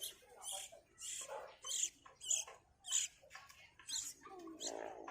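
Baby bird cheeping to beg for food: short, high-pitched cheeps, about two a second.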